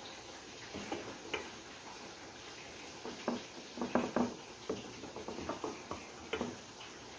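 Wooden spatula tapping and scraping against a glass baking dish while spreading a thick creamy sauce: a scattering of soft, irregular clicks, busiest from about three seconds in.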